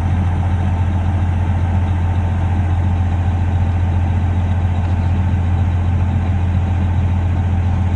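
Large farm tractor's diesel engine running steadily, a constant low drone with no change in speed.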